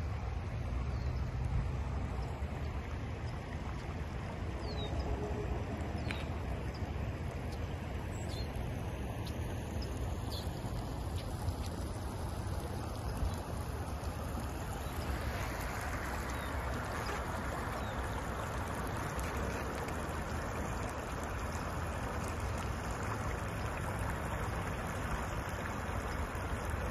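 Floodwater flowing across a flooded street, a steady rushing hiss that grows louder about halfway through, over a constant low rumble. A few faint bird chirps in the first half.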